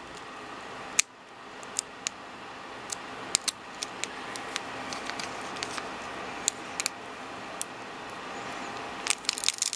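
Foil Pokémon booster pack wrapper being slowly peeled open at its sealed seam by hand: scattered small crinkles and clicks over steady background noise, with a sharper click about a second in and a quick flurry of crinkles near the end.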